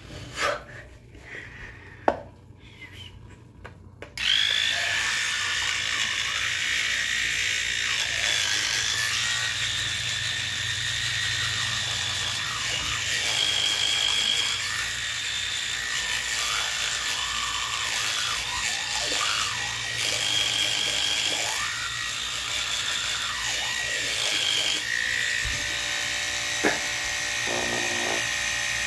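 A sharp click, then about four seconds in an electric toothbrush switches on and buzzes steadily in the mouth during brushing, its high-pitched whine shifting slightly in tone near the end as the brush is moved.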